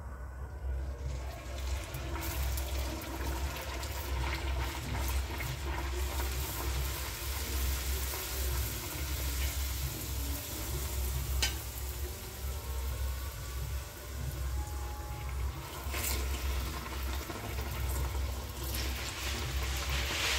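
Luchi deep-frying in hot oil in a kadai, a steady sizzle with crackles that starts about two seconds in and swells near the end, over a low rumble.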